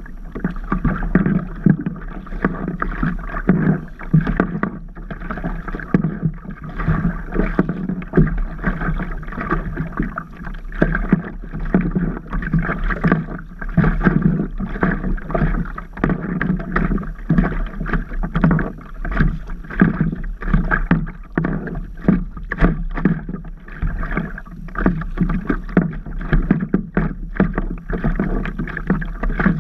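Water lapping and splashing against a stand-up paddleboard, heard close up from a camera on the board, as a continuous run of irregular small slaps and splashes.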